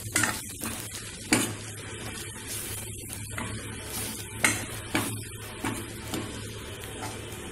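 Spatula stirring onion-and-spice masala frying in oil in a kadai: a steady sizzle with sharp knocks and scrapes of the spatula against the pan every second or so.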